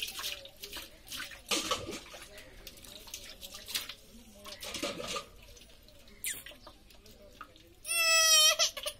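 Water poured and splashed over a baby's bare body several times during a bath. About eight seconds in, the baby lets out a loud, high-pitched squeal lasting under a second.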